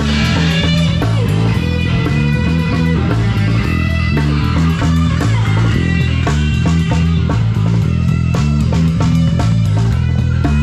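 Live rock band playing loud: electric guitar over a drum kit and a bass line.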